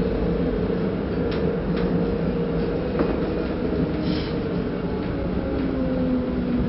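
Tram running along city streets, heard from inside the car: a steady low rumble with a whining motor tone that sinks slowly in pitch in the second half. A few sharp clicks of the wheels over the rails come in the first few seconds.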